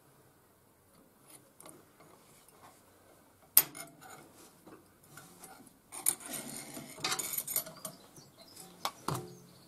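Circlip pliers working the steel C-clip off the inner end of a VW Beetle swing axle: light metallic clicks and scraping, with one sharp click about three and a half seconds in and a spell of scraping a couple of seconds later.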